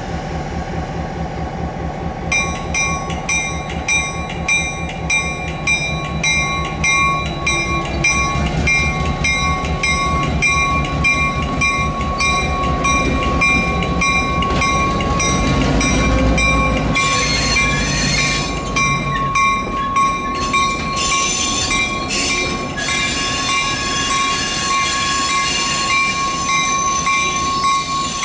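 Norfolk and Western J-class steam locomotive 611 running, with a fast, even beat and rail noise. A steady high-pitched tone runs under it throughout.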